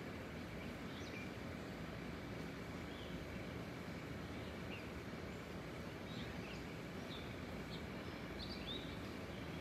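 Steady, distant rumble of a Boeing 777 airliner flying high overhead, with small birds chirping here and there, more often in the second half.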